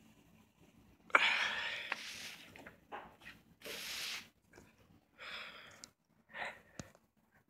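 Paper CD booklet being unfolded by hand: a sudden rustle about a second in, then several shorter rustles and a sharp click near the end.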